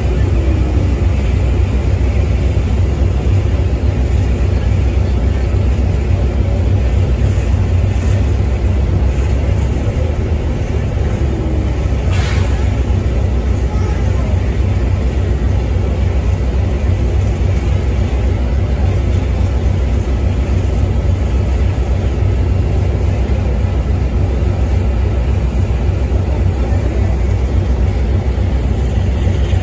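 Inside a moving airport shuttle bus: a steady low engine and road rumble fills the cabin. There is a single short knock or rattle about twelve seconds in.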